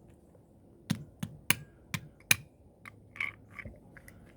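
Hard plastic casing clicking and cracking as it is pried apart by hand. There is a quick run of about five sharp clicks, then a few softer clicks and scrapes.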